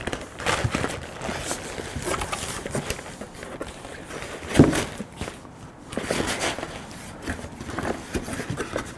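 Packaging being handled: plastic bag and cardboard rustling and crinkling in scattered small clicks, with one louder knock about four and a half seconds in.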